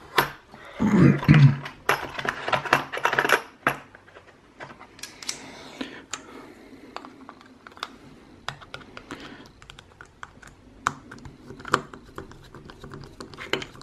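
Clattering handling noise for the first few seconds, then a run of small sharp clicks and taps as a screwdriver works at the screw in the middle of a plastic battery cap held in the hand.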